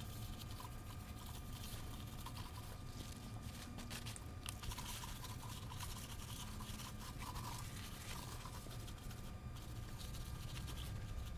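Paper towel wiped and rubbed back and forth across the aluminium deck face of a Jaguar V-12 cylinder head, cleaning the gasket surface with carburetor cleaner: faint scrubbing with a steady low hum behind it.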